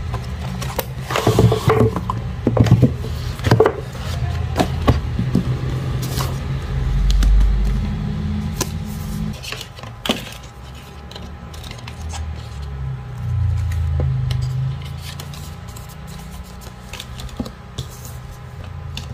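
Handling of paper and card: booklet pages flipped and stickers picked up and set down on a tabletop, with light taps and scrapes that come thickest in the first few seconds and sparser later, over a low steady rumble.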